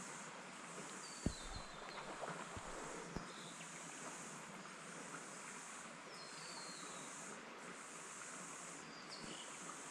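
A chorus of cicadas droning high, swelling and fading every second or so. A bird gives a short call of stepped descending notes twice, about a second in and again about six seconds in, over a few faint clicks.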